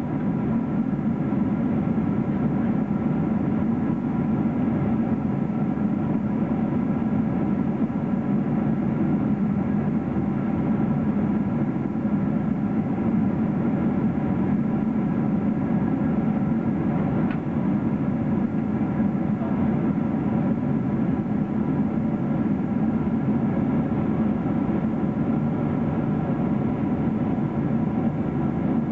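Cabin noise of a Boeing 777-300ER in flight, heard from a window seat over the wing: a steady roar of rushing air and the GE90 engines, with a set of steady tones over it.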